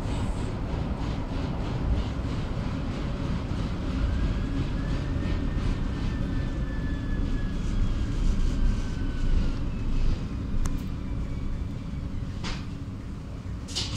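Bucur V2A-T tram in motion, heard from inside the passenger saloon: a steady rumble of wheels on rails. A faint whine rises and then slowly falls off, and a couple of sharp clicks come near the end.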